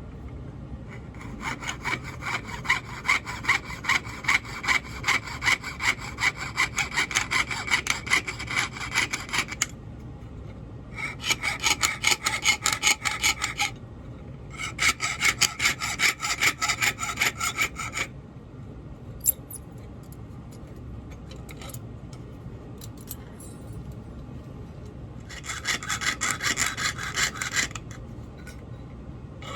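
Jeweler's saw sawing through metal with quick, even back-and-forth strokes: piercing out tabs for a cold-connect clasp. It comes in four runs, with short pauses and a few small clicks between them.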